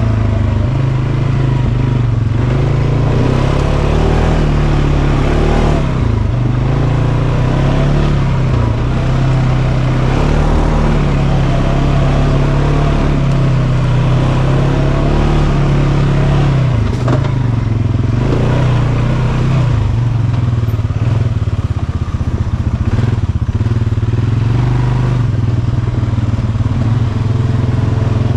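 Polaris Sportsman 570 ATV's 567cc single-cylinder four-stroke engine running while the quad is ridden along a dirt trail, its revs rising and falling with the throttle. A single sharp knock sounds about 17 seconds in.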